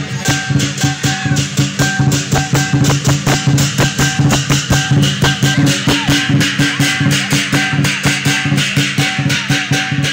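Lion dance percussion band playing live: a big drum beaten in a fast, driving rhythm with clashing cymbals.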